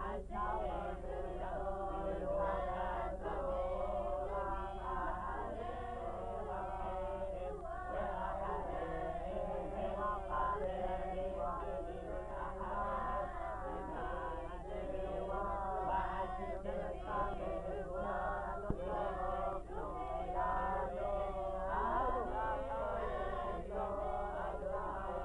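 Group of men chanting together, continuous throughout, over a steady low hum.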